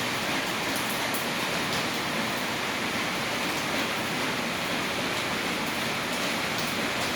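Steady rain falling, a constant hiss with faint scattered drips.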